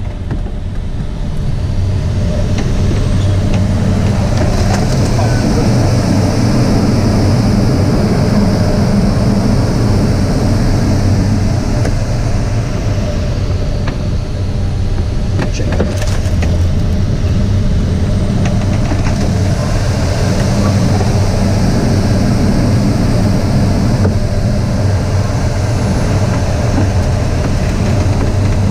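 Air rushing over the canopy of a K21 glider in aerobatic flight: a loud, steady rush with a low hum beneath it. A higher hiss and faint whistle swell and fade twice as the glider goes through its manoeuvres.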